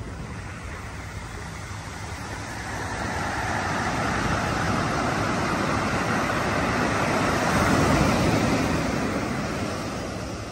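Ocean surf on a sandy beach: a wave breaking and washing up the sand, the noise swelling over several seconds to its loudest about eight seconds in, then easing off.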